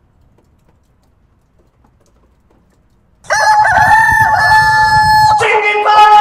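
Near silence for about three seconds, then a rooster crows suddenly and loudly: one long held call that drops to a lower pitch near the end.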